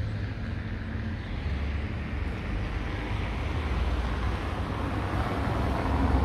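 Outdoor street ambience: wind rumbling on the microphone under a steady traffic hiss that grows gradually louder.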